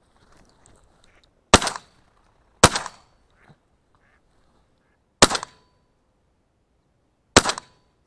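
Four shotgun shots fired at ducks in flight: two about a second apart, then two more about two and a half and two seconds later, each a sharp crack with a short fading tail. The hunter then reports downing two birds.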